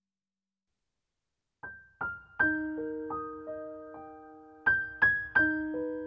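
Silence, then about one and a half seconds in a slow piano melody begins as background music, its single struck notes ringing on and fading.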